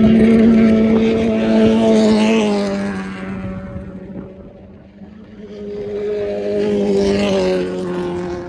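Side-by-side UTV engine running at high, steady revs, easing off and fading about four seconds in, then building back up.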